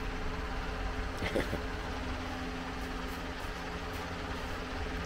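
Steady low mechanical hum holding a few constant tones, with one brief short chirp about a second in.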